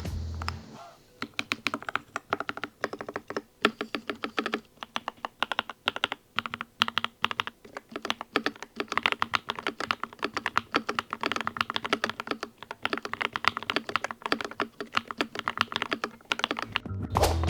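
Typing on a Keychron K8 Max aluminium-framed mechanical keyboard: a fast, continuous run of key clacks. Background music fades out in the first second and comes back near the end.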